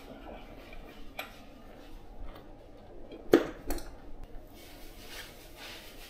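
Metal hand tools clinking on a road bike's rear hub during lock nut tightening: a few light clicks, then a sharp metallic clink about three seconds in, quickly followed by a second, and soft rubbing near the end.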